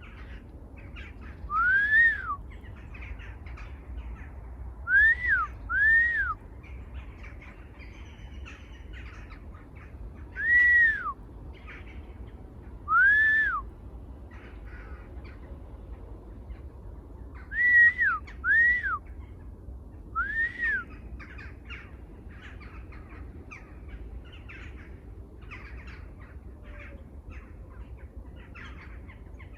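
A bird gives a loud call that rises and then falls in pitch, about eight times, sometimes two calls in quick succession. Fainter, short chirps from other birds continue underneath.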